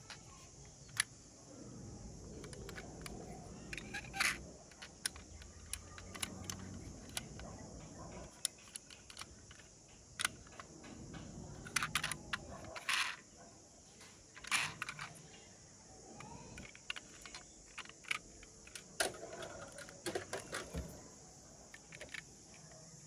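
Small sharp clicks and taps of a toy model ambulance being handled, its little doors snapped open and shut, scattered irregularly with a few louder clicks, over a steady high hiss.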